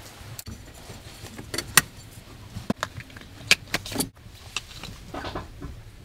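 Scattered sharp clicks and clinks, about eight of them, from a tool and plastic trim as hands work at the gear lever's rubber boot and console trim in a Nissan S15, over a faint steady low hum.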